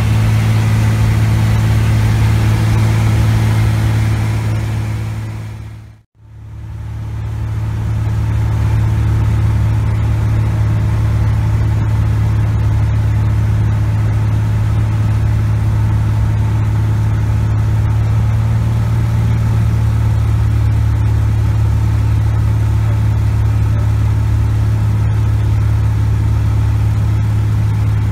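Cessna 180's six-cylinder Continental O-470 engine and propeller droning steadily inside the cockpit in flight, a constant low hum. It fades out and straight back in about six seconds in.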